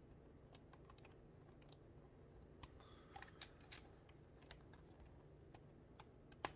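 Plastic Qman building-block parts clicking and ticking as they are handled and pressed onto the model's frame, with a cluster of small clicks about three seconds in and one sharper snap near the end as a piece is pushed home.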